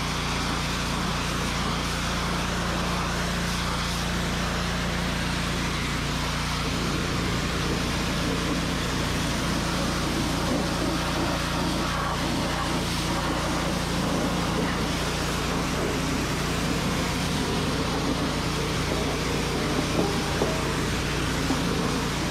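Gas pressure washer running steadily: its Honda GX200 single-cylinder engine hums under the hiss of the high-pressure water jet blasting a tractor's tire and steel wheel rim.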